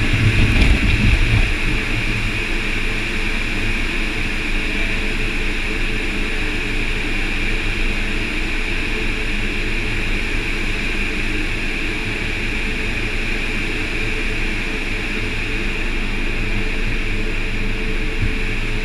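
Automatic car wash tunnel machinery running steadily: the rotating wash brushes and their motors make a constant whirring noise, with a louder low rumble in the first second or so.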